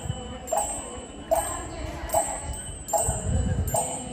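Background music with a chime-like note struck on a steady beat, about one strike every 0.8 seconds. A short low rumble comes about three seconds in.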